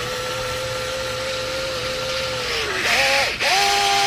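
Handheld power tool spinning a deep socket on the nut of a coilover shock's shaft: a steady motor whine that sags in pitch about three seconds in, cuts out for an instant, then runs again at a higher pitch.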